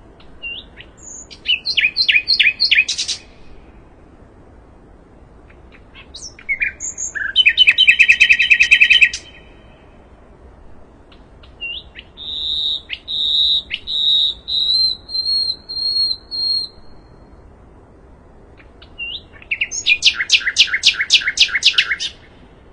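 Sikatan londo songbird singing in four separate phrases a few seconds apart: fast trills of repeated clear notes, and in the middle a run of about half a dozen longer whistled notes.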